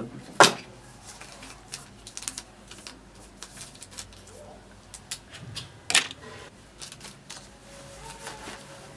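Paper and pen being handled: scattered small rustles and clicks, with two sharper clicks, one about half a second in and one about six seconds in.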